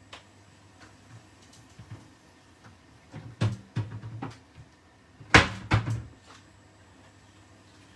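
A few short knocks and clatters of things being handled in a kitchen, with the loudest, a couple of sharp bangs, about five and a half seconds in.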